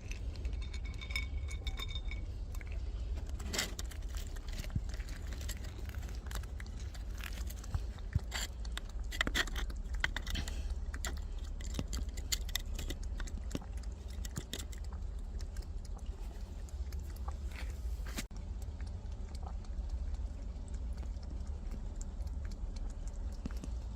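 A cat eating food, chewing with irregular crunching clicks that thin out after about 18 seconds, over a steady low rumble.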